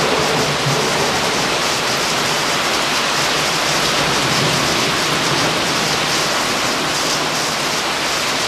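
Torrential downpour: heavy rain pouring steadily onto the street, lawn and parked cars.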